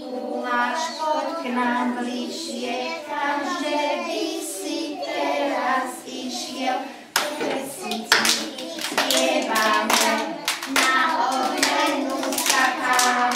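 A group of young children singing a song together. About halfway through, steady hand claps come in, roughly two a second.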